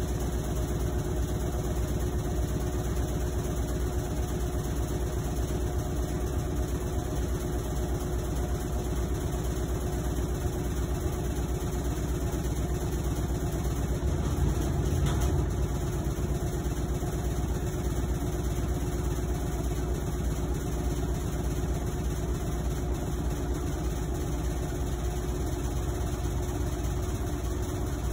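Whirlpool WTW5010LW top-loading washing machine running mid-cycle: a steady low rumble with a constant hum over it. The owner calls it terribly loud, like a freight train, while Whirlpool's technician says that is just how it is.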